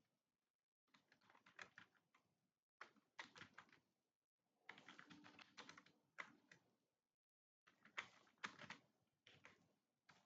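Faint computer-keyboard typing: quick runs of key clicks in spurts of a second or two, broken by short pauses about a second in, near the middle and about three quarters of the way through.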